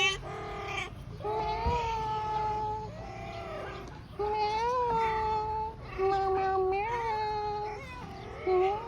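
Siamese cat meowing repeatedly in long, drawn-out, wailing calls, each lasting about a second or more, rising a little in pitch and falling back at the end.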